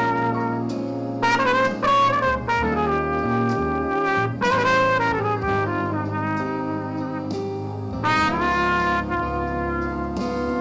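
Instrumental worship music: a brass lead plays a slow melody of held notes, some sliding into pitch, over a sustained bass line.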